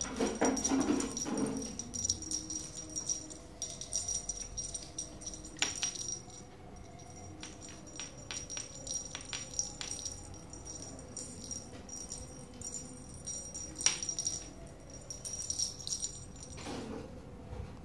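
Small bell on a wand cat toy jingling in bursts as a kitten swats and grabs at it, with scattered sharp rattles and clicks; busiest in the first couple of seconds.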